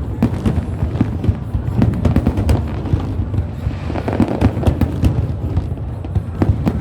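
Fireworks going off in quick succession: rapid sharp crackles and pops over a continuous low rumble of bursts.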